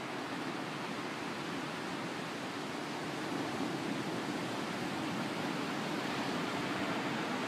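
Steady rushing road and wind noise of a car driving slowly, heard from inside the car, growing a little louder about halfway through.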